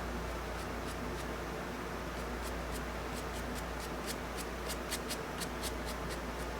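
A drawing tool scratching across paper in a run of short strokes, which come faster and closer together about four to five seconds in, over a steady low hum.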